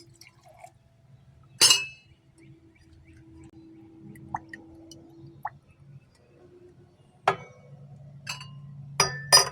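Glassware clinking as it is handled: one sharp glass clink about two seconds in and a few more near the end, over a faint low steady hum.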